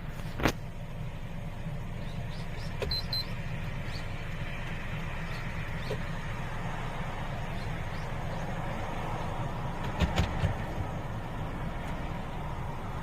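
Steady low rumble of a Kia Ray heard from inside its cabin on the move. A sharp click comes about half a second in, a brief high double beep near three seconds, and a quick run of three knocks around ten seconds.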